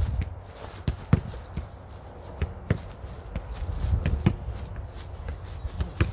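Soccer ball touches and strikes from the feet, with running footsteps: irregular sharp thuds, some louder than others, over a steady low rumble.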